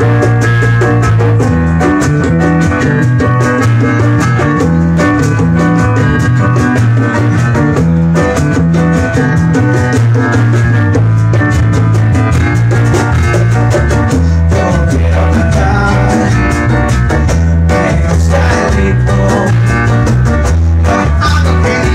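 A live band playing a song with electric guitars, drums and a hand drum over a strong, moving bass line.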